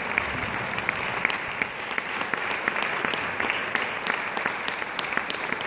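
Audience applauding steadily: a dense, even patter of many hands clapping, with sharper single claps standing out here and there.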